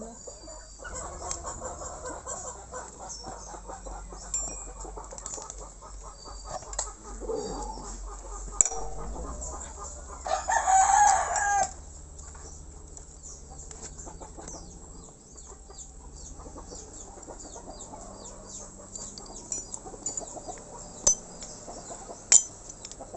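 A rooster crows once, about ten seconds in, for over a second, over scattered small clicks and knocks.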